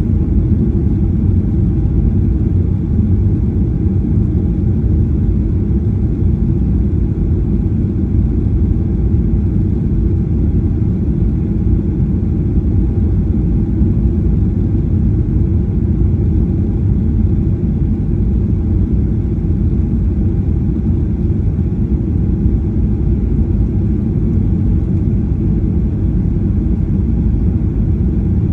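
Steady low rumble of a Boeing 737-800's CFM56-7B engines and the airflow over the fuselage, heard inside the passenger cabin. It holds even throughout, with no thump or change in pitch.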